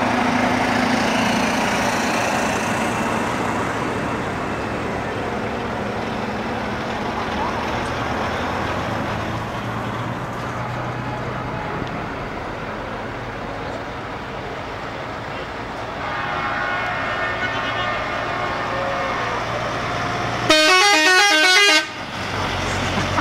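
Heavy truck diesel engines running as tractor units drive past. A horn sounds faintly about two-thirds of the way in. Near the end a very loud multi-tone truck horn plays a warbling tune for about a second and a half.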